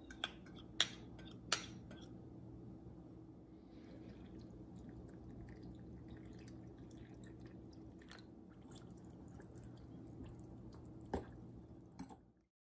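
A small glass bowl clinks against a glass mixing bowl a few times in the first two seconds as potato starch is tipped in. Then water is poured from a glass measuring jug onto the starch, and a fork stirs it, clinking sharply against the glass twice near the end. A steady low hum runs underneath.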